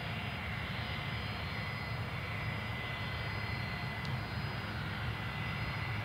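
Fokker 100's two rear-mounted Rolls-Royce Tay turbofans idling while the jet holds on the runway. It is a steady low rumble with a thin, constant high whine over it.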